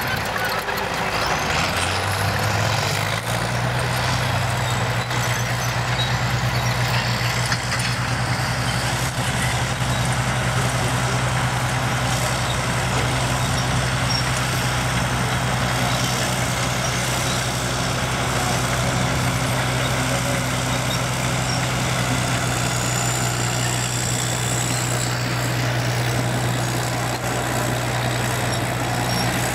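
Diesel engine of a vintage Caterpillar crawler tractor running steadily under load as it tows a scraper across a field; the engine note rises about two to three seconds in, then holds steady.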